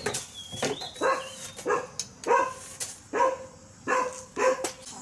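A dog barking repeatedly, about ten short barks at roughly two a second.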